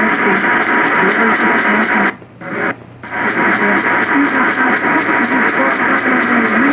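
Music played through a radio receiver, half buried in steady hiss. The signal cuts out briefly about two seconds in, then comes back.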